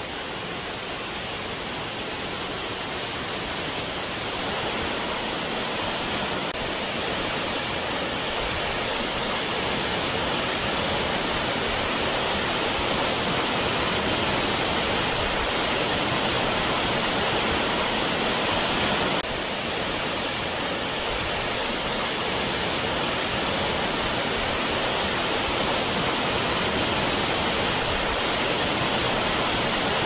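Tat Mok waterfall: a steady rush of water falling down a rock face and splashing into a pool, growing a little louder over the first few seconds.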